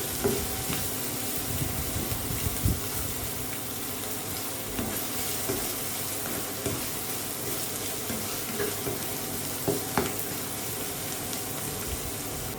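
Sliced onions sizzling steadily as they fry in hot oil in a pan, stirred now and then, with a few light knocks of the utensil against the pan.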